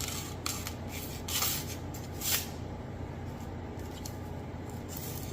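Bone Tactical Space Cowboy machete slicing through paper, three short swishes in the first couple of seconds. The edge is unsharpened and feels dull, yet it still cuts the paper.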